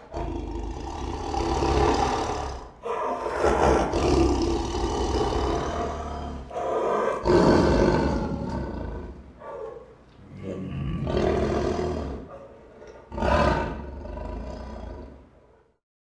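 Sumatran tiger growling and roaring in a string of about five long, deep, rasping growls with short breaks between them.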